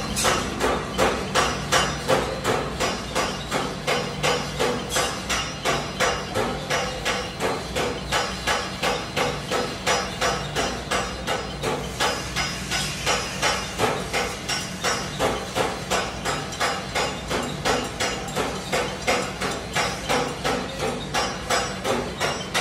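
Fine grinder flour mill running with its grinding chamber open and the rotor spinning, a steady hum under a loud, regular sharp knocking about three times a second. The knocking stops at the very end.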